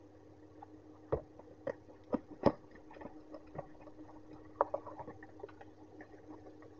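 Cardboard box being opened by hand and a plastic USB fan in its plastic sleeve pulled out: sharp cardboard knocks and flap snaps, loudest about two and a half seconds in and again just after four and a half seconds, with softer rustling and crackling between. A steady low hum runs underneath.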